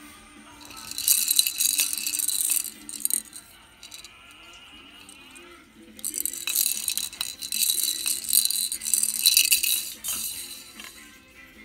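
A pair of plastic toy maracas being shaken, a dense hissy rattling in two bouts of a few seconds each.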